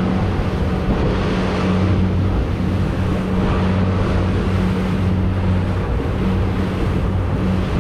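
Boat engine running steadily at trolling speed, a low even hum under the rush of wind and water.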